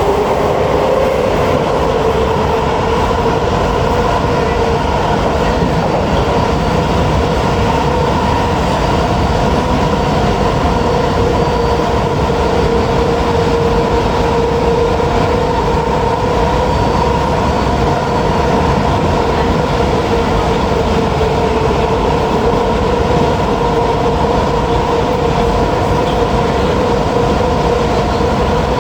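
Kawasaki-Sifang C151B metro train running at a steady speed, heard from inside the car: a steady rumble of wheels on the rails with a few steady whining tones from the running gear.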